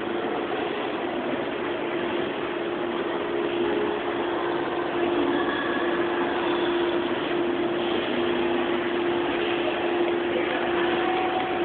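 Shopping-mall interior ambience: a steady hum with one constant low tone over an even wash of noise.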